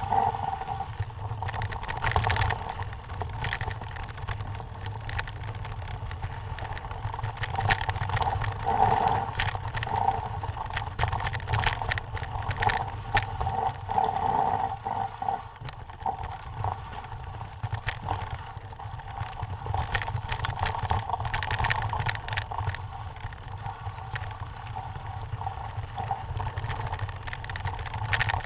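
Mountain bike rolling down a rocky dirt singletrack: tyres crunching over gravel and the bike rattling and clattering over stones, over a steady low rumble.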